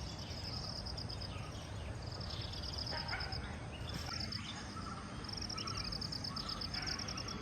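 Insects chirring in repeated pulsed bursts about a second long, over a steady low background rumble.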